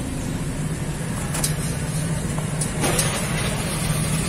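Steady low hum of a running vehicle engine idling, with a few light clicks over it.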